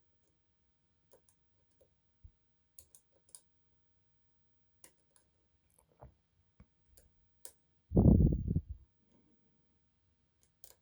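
Lock picks working the pins inside an Adamant lock: faint, scattered metallic clicks and ticks as the pins are pushed and set. About eight seconds in comes a much louder, low, dull noise lasting under a second, like a knock or a blow on the microphone.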